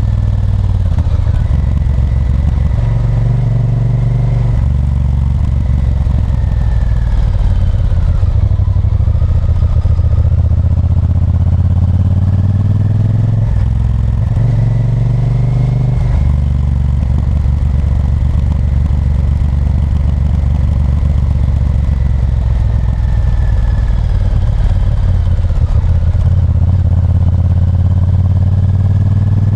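Honda Varadero 1000's V-twin engine running under way, its pitch rising and falling several times as the rider works the throttle.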